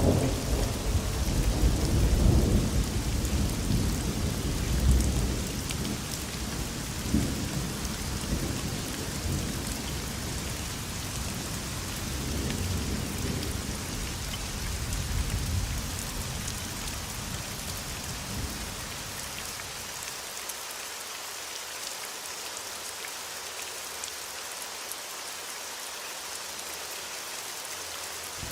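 Thunderstorm: steady rain hissing throughout, with thunder rumbling in the first half, loudest in the opening seconds and dying away. For the last third only the rain is left.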